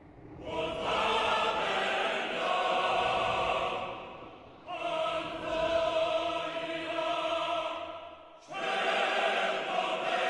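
Film score: a wordless choir singing in three long, sustained phrases.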